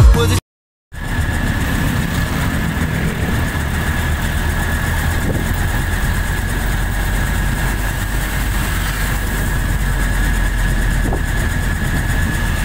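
Engine of a passenger vehicle running steadily as it rides along a street, heard from aboard, with a constant low hum and a thin steady whine. A moment of music cuts off just before it begins.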